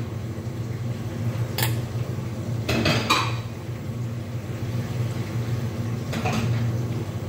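A few short clinks and scrapes of a spoon and ceramic plate being handled, about a second and a half in, around three seconds and again near six seconds, over a steady low hum.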